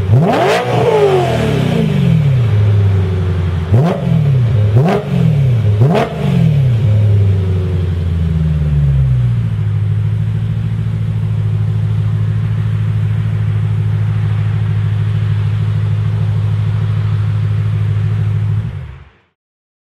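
BMW M3 E92's V8 revved at standstill through a Supersprint full exhaust with sports cats, centre resonators and open, valve-free test end pipes: a sharp blip at the start falling away, three quick blips a few seconds later, then settling into a steady idle. The sound cuts off suddenly near the end.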